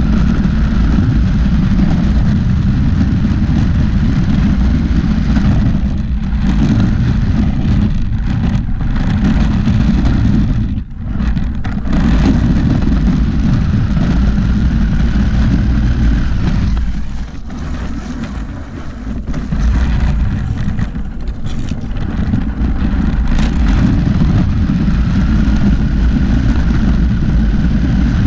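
RC monster truck driving fast over concrete, heard from a camera mounted on the truck: a loud rumble of tyres and chassis vibration with a faint motor whine rising and falling. It eases briefly about ten seconds in and again for a couple of seconds just past halfway.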